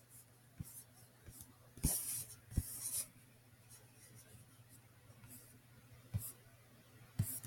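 Computer mouse handled on a desk: a few sharp clicks and a short scratchy rub of the mouse sliding, about two seconds in, over a faint steady low hum.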